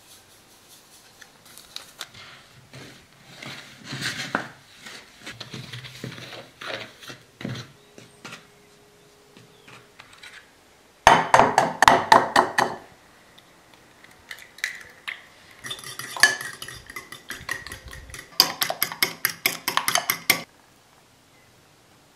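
Kitchen utensils knocking and clinking against mixing bowls: scattered clinks at first, then loud bursts of fast, even tapping about eleven seconds in and again near the end.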